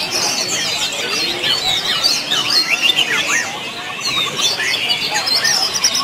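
Many caged songbirds singing at once: a dense chorus of overlapping chirps, whistles and quick trills.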